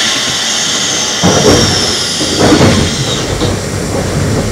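Eizan Electric Railway train with nose-suspended traction motors running on the Kurama line, a steady rumble of wheels and motors. A thin high whine slides slowly down in pitch over the first three seconds, and the rumble swells a couple of times.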